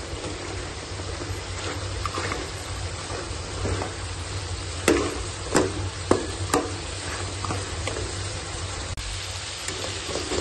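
Mutton and tomatoes sizzling in a metal karahi as a metal spatula stirs and scrapes through them, with a few sharp clinks of the spatula against the pan around the middle. The tomatoes are being fried down on medium flame to dry off their water.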